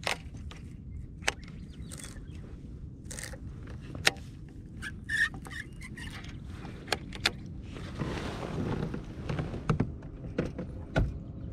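Scattered light clicks, knocks and scrapes of fishing tackle handled in a kayak over a low steady rumble, with a brief rush of noise about eight seconds in.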